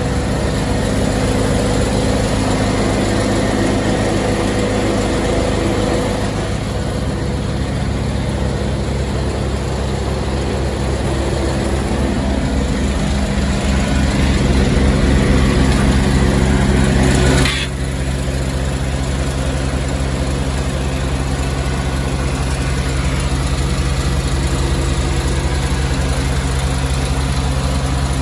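A screening machine's engine running steadily, its note shifting a few times. About two-thirds of the way through, a click is followed by a sudden drop to a lower, steady level.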